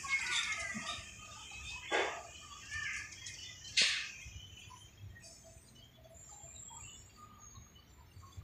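Birds chirping and calling, with two sharp knocks about two and four seconds in.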